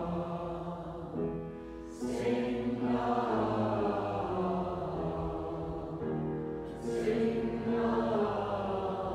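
Mixed choir singing a relaxed, speech-like "ah" on sustained low notes in a vocal warm-up, with piano. Two phrases, each begun with a breathy intake of air at about two seconds and seven seconds in.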